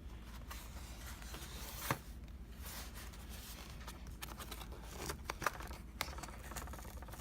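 A cardboard shipping box being handled and opened: faint rustling with a few scattered sharp clicks and snaps, a cluster of them near the end.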